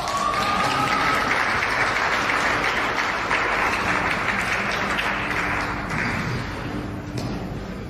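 Audience applauding, thinning out after about six seconds.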